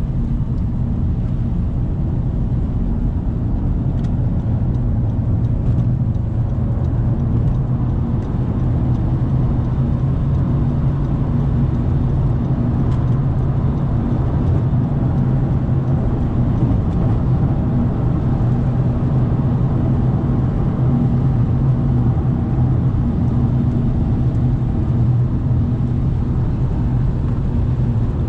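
Steady cabin noise of a turbocharged car cruising on the highway: a constant low engine hum over tyre and road noise, heard from inside the car.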